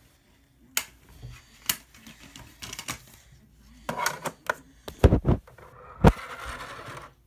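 Scattered clicks and knocks of a handheld phone camera being handled. The loudest is a thump about six seconds in, followed by about a second of steady hiss that cuts off suddenly.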